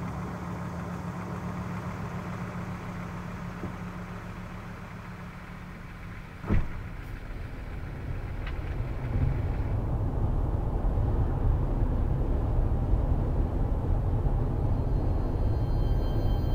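Car running, heard from inside the cabin: a steady low hum, a single sharp thump about six and a half seconds in, then a louder low rumble from about nine seconds in.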